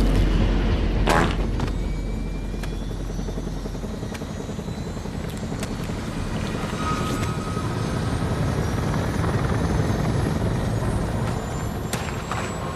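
Helicopter running: steady rotor and engine noise, with a sharp hit about a second in and another near the end.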